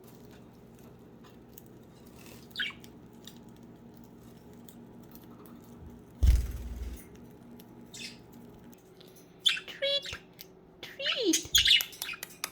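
Pet budgerigars chirping: a single short call a couple of seconds in, then a busy run of quick high chirps and a falling squawk over the last three seconds. A dull thump about six seconds in is the loudest sound.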